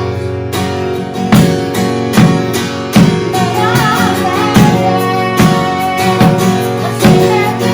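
Worship band playing an instrumental passage, led by strummed acoustic guitar with steady chords, with a faint melodic line from a voice or instrument about halfway through.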